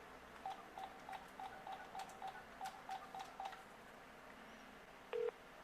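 VTech DS6361 cordless handset beeping as a phone number is keyed in: about a dozen quick, faint beeps all at one pitch, each with a light key click. A single short, lower beep follows near the end.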